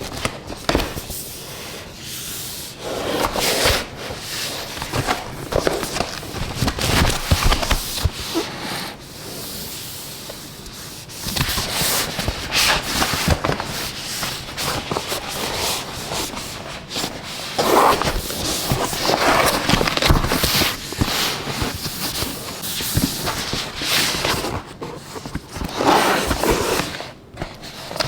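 Keyboard box and packing being handled and opened: irregular rubbing and crinkling with scattered sharp clicks and knocks.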